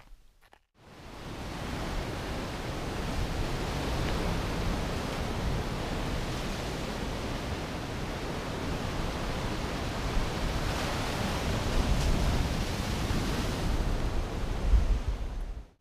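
Ocean surf breaking and washing on a rocky lava shoreline, a steady rushing noise that fades in about a second in, with gusts of wind on the microphone.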